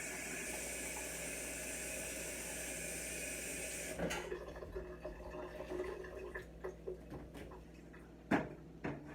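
Water running steadily from a tap for about four seconds, then shut off abruptly, followed by light scattered knocks and clatter with one louder knock near the end.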